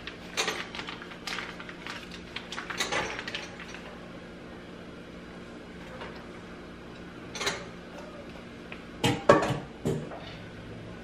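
Plastic bag crinkling and rustling with light clicks as thawed fish fillets are handled and taken out of it. This is followed by a few sharp knocks of kitchenware being set down about nine seconds in, over a faint steady hum.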